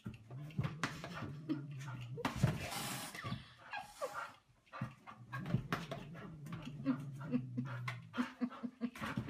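A dog panting and whining, a low held whine in long stretches broken by short pauses.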